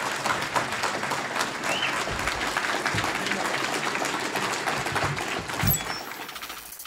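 Audience applauding at the end of a speech, a steady dense clapping that fades away near the end.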